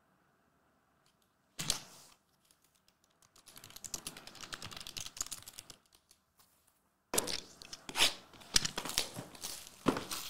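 Plastic shrink-wrap being torn and crinkled off a sealed trading-card hobby box. It comes in bursts: a short rip about a second and a half in, a longer stretch of crinkling from about three and a half seconds, and louder tearing and crackling from about seven seconds on.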